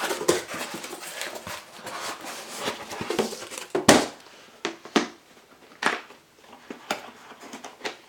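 A cardboard shipping box being opened and its contents handled: about three seconds of rustling and scraping, then a series of sharp knocks and taps about a second apart.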